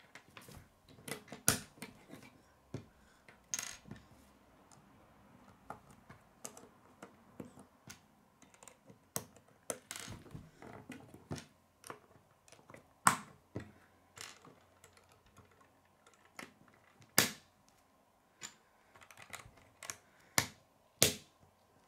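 Plastic K'nex rods and connectors clicking as they are snapped together and knocked against a wooden table, in irregular clicks, a few of them much sharper than the rest.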